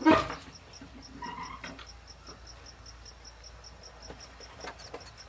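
An insect chirping steadily in a high-pitched pulse, about five chirps a second, over faint outdoor background, with one sharp knock at the very start.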